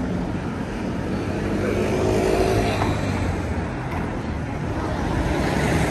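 Street traffic: a car engine running as a car drives slowly through a junction, over a steady wash of street noise.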